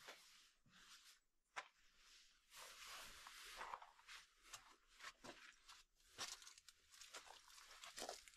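Faint footsteps scuffing and crunching over a dirt floor with loose stones and dry brush, with irregular small clicks and cracks.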